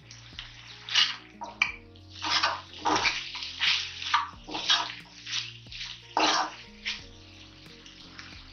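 A spatula stirring and scraping goat intestine fry in a nonstick kadai, in short strokes about twice a second, with the thick masala sizzling. Soft background music with steady low notes underneath.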